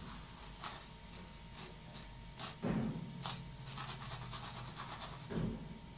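Sabudana wadas frying in hot oil in a steel karahi: a faint steady sizzle with clicks and scrapes of a wire skimmer and wooden spatula against the pan, and two dull knocks, about halfway and near the end.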